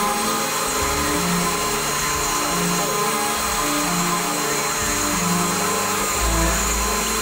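CNC router spindle running steadily with a V-bit cutting into an end-grain hardwood cutting board: a steady whine over cutting noise. Background music plays with it.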